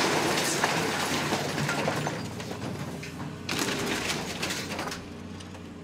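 Excavator demolishing a building: debris crunching and clattering with many sharp cracks over a low steady engine hum, fading out near the end.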